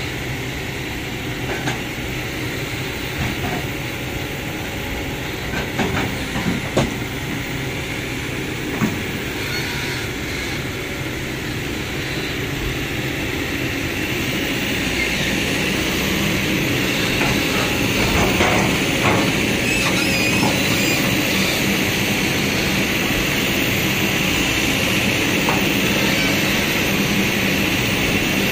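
Kobelco hydraulic excavator running, its bucket scraping sticky soil out of a raised steel dump truck bed, with a few sharp metal knocks of bucket on bed in the first half. The engine grows louder about halfway through as the arm reaches down into the bed.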